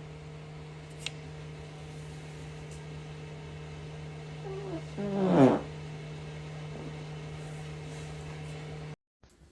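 A person farting: one short pitched fart about five seconds in, rising then dropping sharply in pitch at its end, over a steady low hum.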